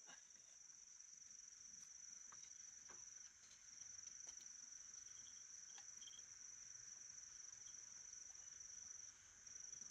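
Faint, steady high-pitched insect trill that briefly drops out twice, with a few soft clicks.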